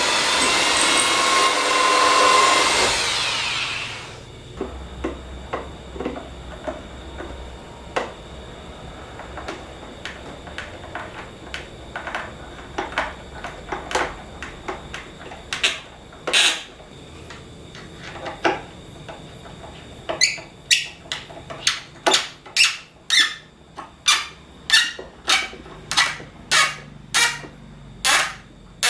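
A power tool runs loudly and stops about four seconds in. Then comes a long series of sharp knocks, scattered at first, then louder and steady at about one or two strikes a second through the second half.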